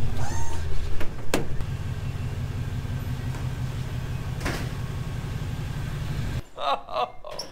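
The custom off-road wrecker's engine idling through its Flowmaster HP2 mufflers, a little louder in the first second or so, then switched off about six and a half seconds in.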